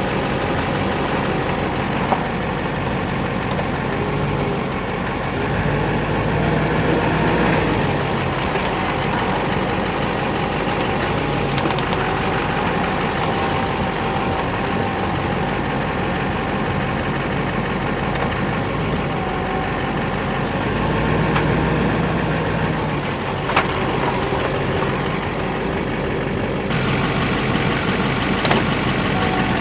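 2008 Chevrolet Silverado 2500's 6.6-litre Duramax V8 turbodiesel running near idle, with a few sharp pops from the front end: one about two seconds in and two more near the end. These are the popping-when-turning noise that the owner traced to loose engine crossmember bolts.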